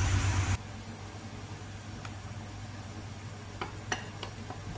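A few faint light clinks of a metal spoon against a glass bowl of flour, otherwise quiet.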